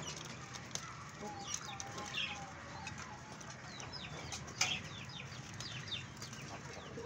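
Busy high chirping and twittering from many birds in a pigeon loft, with a few short lower calls between one and two and a half seconds and one sharp click a little past halfway.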